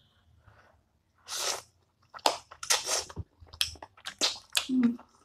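Close-up eating sounds from Shin Ramen noodles and spicy chicken feet. One hissing noodle slurp comes about a second in, then a quick run of wet slurping, lip smacks and chewing.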